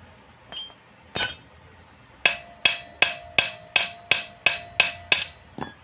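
Small steel wrench struck against the steel cylinder studs of a motorcycle crankcase. One loud knock comes just after a second in, then a steady run of nine ringing metallic taps about three a second, and a lighter tap near the end.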